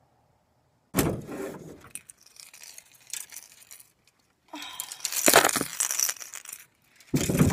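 Close clinks and rattles of fishing gear being handled in an aluminum boat, in two loud stretches: one starting about a second in, a louder one from about halfway.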